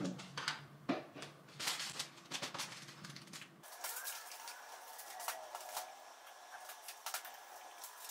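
Faint scattered rustling and light tapping of hands pressing and smoothing a sheet of soft air-drying clay onto a canvas edged with crumpled tin foil. A low background hum under it cuts off abruptly about three and a half seconds in.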